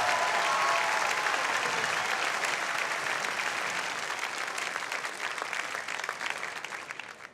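Studio audience applauding, with a few whoops in the first second; the clapping slowly fades and cuts off sharply at the very end.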